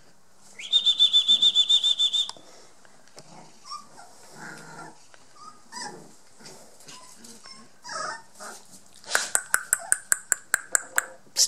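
Young Border Collie puppies whimpering and squeaking, with two bursts of rapid, high-pitched, evenly repeated chirps, about a second in and again near the end.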